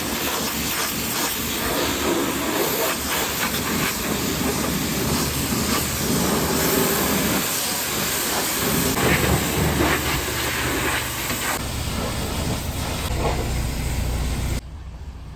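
High-pressure washer spraying water, a loud steady hiss that drops away suddenly near the end.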